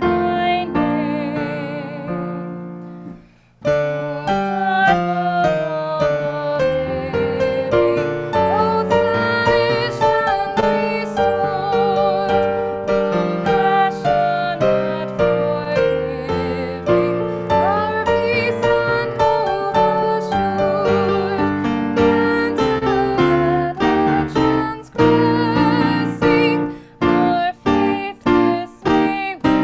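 Piano music with a melody line above it. It fades away about three seconds in and starts again with a new passage; near the end it plays short, separated chords.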